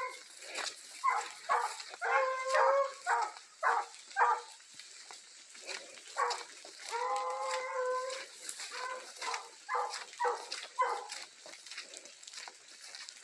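Dogs barking and yelping repeatedly, with two drawn-out howling calls, one a couple of seconds in and one about seven seconds in.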